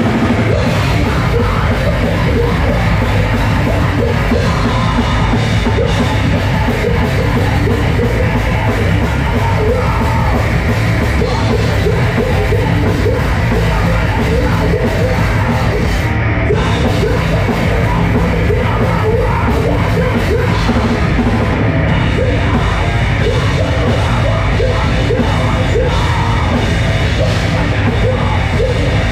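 Heavy metal music at full volume, with shouted, screamed vocals over distorted guitars and a drum kit.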